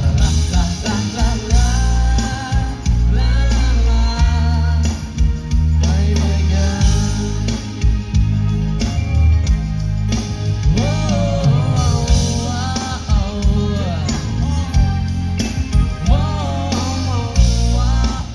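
Live band performing a song with a male lead singer, his voice wavering with vibrato over guitar and a heavy bass, loud through the concert sound system.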